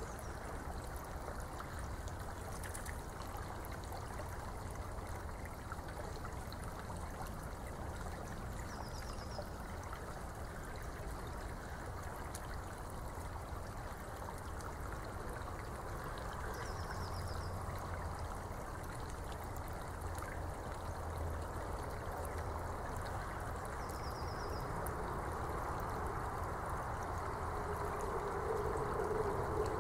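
Eurasian beaver gnawing and chewing on twigs: small crunching clicks over a steady rushing background, like running water.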